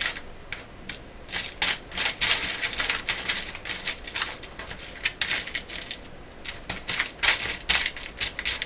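Small metal washers and screws clinking and rattling as they are sorted through by hand, a rapid, irregular run of light clicks.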